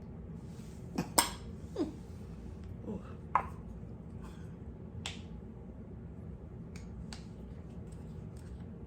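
Product packaging being opened by hand: a few sharp clicks and snaps, with short squeaks in between, the loudest a little after a second in and again at about three and a half seconds, then fewer, lighter clicks.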